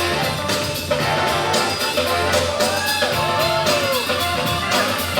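Funk music playing loud, with a steady drum-kit beat and pitched instrumental lines over it.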